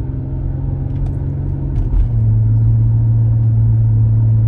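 Car engine and road noise heard from inside the cabin while driving: a steady low hum that shifts to a louder, even note about two seconds in.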